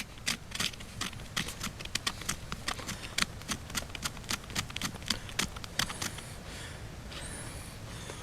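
Ferro rod being struck again and again to throw sparks onto fire-lighting card, quick sharp scrapes about three to four a second that stop about six seconds in.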